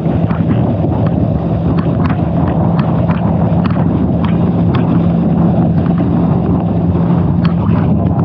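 Boat motor running steadily under the boat's way, with heavy wind noise on the microphone and scattered sharp taps.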